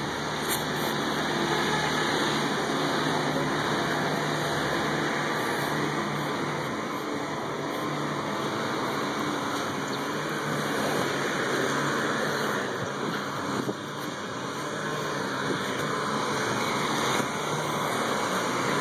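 Steady noise of road traffic from the street alongside, an even hiss with no single event standing out.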